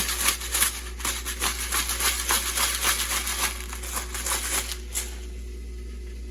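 Rapid, irregular clicking and scraping of kitchen utensils, stopping about five seconds in.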